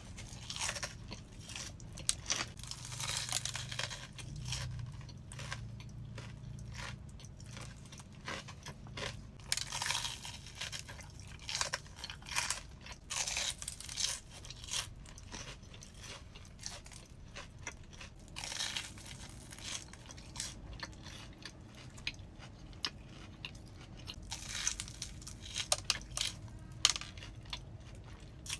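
Close-up crunching and chewing of a crispy Korean corn dog: irregular crackly bites and chews, one after another.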